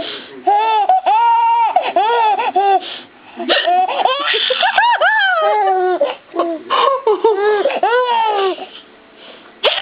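Six-month-old baby laughing: a string of short, high-pitched laughs with brief pauses between them.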